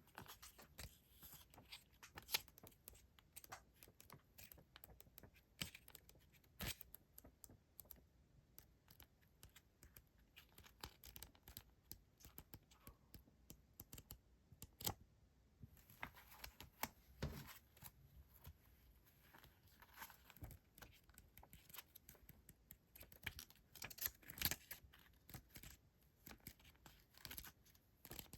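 Faint close-up handling of paper stationery: scattered rustles, crinkles and light taps of paper and sticker sheets being moved and touched.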